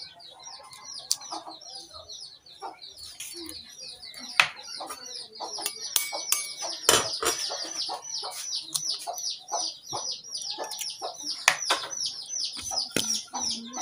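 Two eggs being cracked open, a few sharp cracks, against a background of birds chirping rapidly and continuously, several short falling chirps a second.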